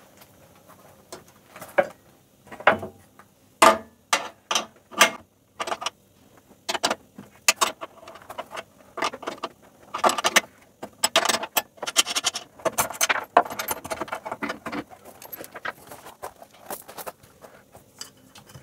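Metal parts and hand tools clinking and rattling in many irregular sharp clicks as the air conditioner's outdoor unit has its feet unscrewed and swapped for spring anti-vibration mounts. The clatter grows denser in the second half.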